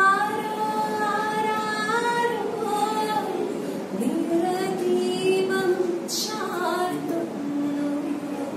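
A woman singing a few lines of a Malayalam song unaccompanied, with long held notes in gently gliding phrases.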